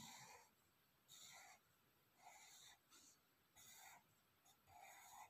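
Near silence with faint pencil strokes on paper: a soft scratch roughly once a second.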